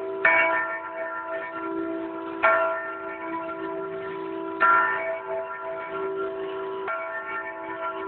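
A newly cast 3 ft 9.5 in bronze bell on counterbalanced slow-swinging fittings, swinging and striking four times about two seconds apart, with each stroke ringing on under the next. The last stroke is a little softer.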